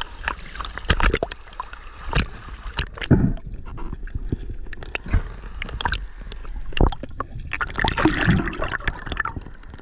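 Sea water sloshing, splashing and gurgling around a camera at the waterline that dips under the surface, with irregular sharp splashes and knocks as a diver swims out.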